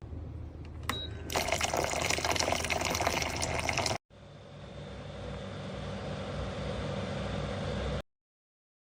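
Water running into a container, most likely the humidifier's water tank being filled: a loud splashing gush that cuts off about four seconds in, then a steadier fill that slowly grows louder and stops abruptly near the end.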